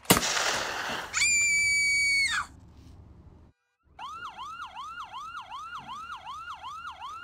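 A loud sudden bang, followed by a high held scream, then after a brief silence a siren whose pitch sweeps down and snaps back up about three times a second.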